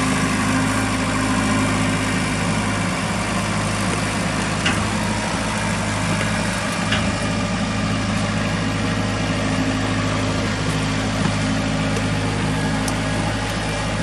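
Kubota compact tractor's diesel engine running steadily, with a couple of faint ticks partway through.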